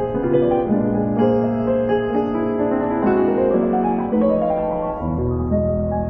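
Background piano music: soft, slow notes with sustain.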